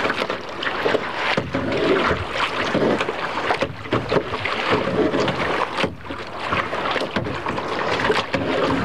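Kayak paddling in choppy lake water: the paddle blades splash and water sloshes against the kayak in an irregular run.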